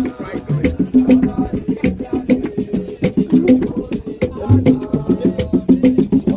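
Music with a fast, steady percussion beat over a repeating low note.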